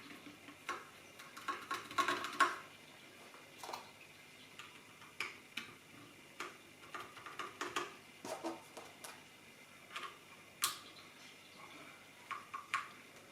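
Irregular small plastic clicks and taps as keycaps are handled and pressed onto the Holy Panda switches of a mechanical keyboard. They come singly or in quick little clusters with short pauses between them.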